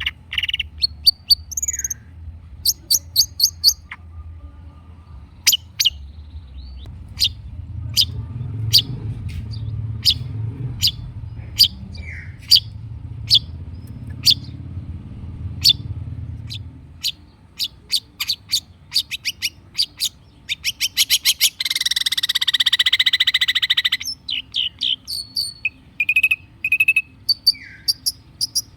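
Long-tailed shrike (cendet) singing hard: a fast run of sharp high chips and short whistled notes, with a harsh buzzy rattle lasting about two seconds past the middle. A low hum sits under the first half.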